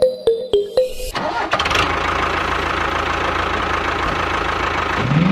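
A few short plucked musical notes, then about a second in an engine starts and runs steadily, with a short rising rev near the end.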